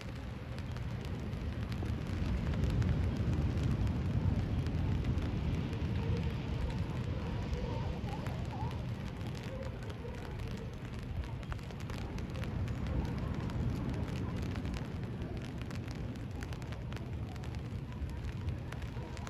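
Wind buffeting a phone's microphone on an open beach, a steady rumbling noise that swells a couple of seconds in and then settles.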